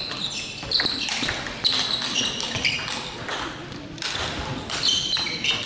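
Table tennis rally: the celluloid ball clicking sharply off the bats and table again and again, with high squeaks from sports shoes on the hall floor.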